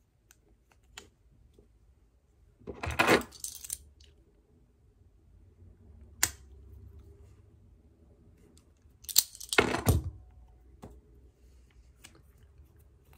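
A small metal hand tool and a pen are handled, with two short bursts of metallic clinking and rattling, about three seconds in and near ten seconds, and a single sharp click around six seconds.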